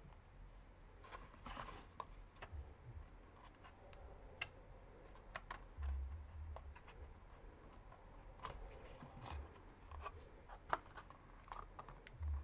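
Faint handling sounds of a cardstock model on a desk: scattered small clicks, taps and paper rustles, with a few dull low thumps, the biggest about six seconds in and near the end.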